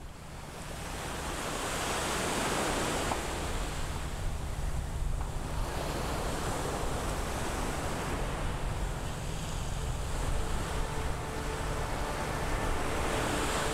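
Ocean surf washing as a steady hiss that swells and eases every few seconds, fading in over the first couple of seconds.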